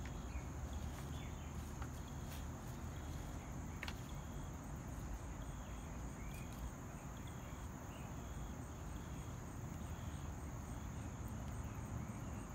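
Crickets chirring in a steady high trill, with another insect chirping in short regular pulses, slightly over one a second. A single sharp tick sounds about four seconds in.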